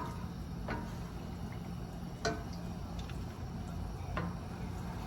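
A utensil stirring cream sauce in a pan, clinking lightly against the pan about four times, over a steady low hum.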